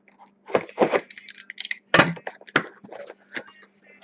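Cardboard shipping case of trading-card boxes being handled and pulled open by hand: irregular knocks, scrapes and rustles of cardboard, the loudest about two seconds in.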